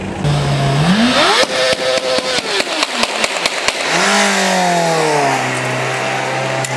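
A vehicle engine revved hard: its pitch climbs steeply and is held high for about two seconds with a rapid run of sharp cracks. It then drops away, comes up again about four seconds in, and falls back to a steady low run.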